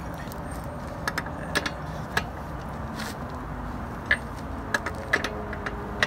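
Sharp metallic clinks of a steel socket and breaker bar on a car's front wheel nuts, about seven irregular clicks, over a steady low background rumble.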